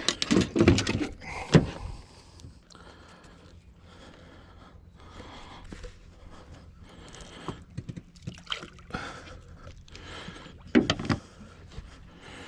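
Water splashing and knocking against a fishing boat as a caught blue catfish is handled and released over the side. The knocks and splashes are loudest in the first two seconds and again about eleven seconds in, with softer sloshing and handling noise between.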